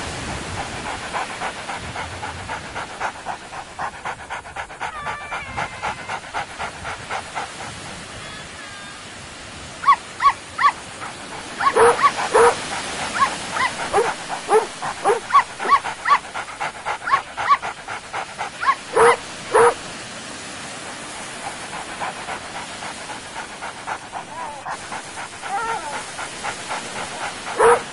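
A dog barking over and over: quick, quieter barks through the first several seconds, then louder barks in clusters from about ten seconds in. A steady hiss runs underneath.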